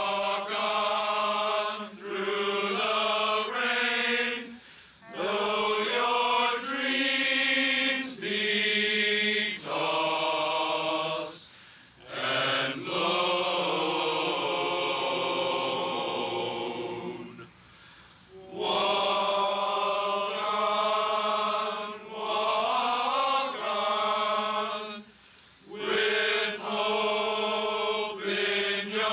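Voices singing together in slow, sustained chords, phrase after phrase with short breaks between them.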